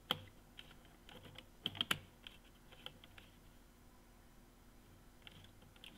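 Faint, irregular clicks and ticks of a small screwdriver working a screw terminal on a Siemens LOGO controller, clamping a wire into it. The sharpest clicks come right at the start and in a cluster about two seconds in.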